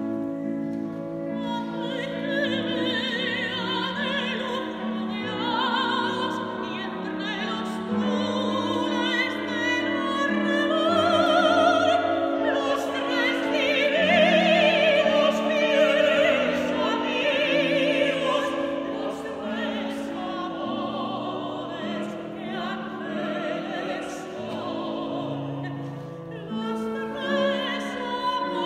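A soprano and a baritone sing a classical duet with grand piano accompaniment, with operatic vibrato. It swells to its loudest about halfway through.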